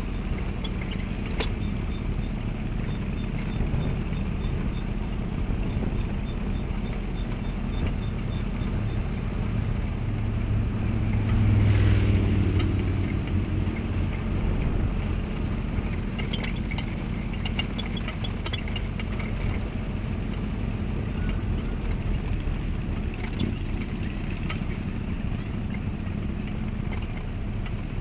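Motorcycle and trike engines running at low speed as a procession goes by, a steady low rumble that swells as one passes close about halfway through.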